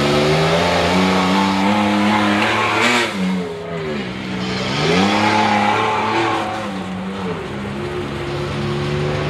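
Ford F-150 gas pickup's engine under full load pulling a weight-transfer sled, the revs climbing, dropping sharply twice and climbing again, then holding steady near the end.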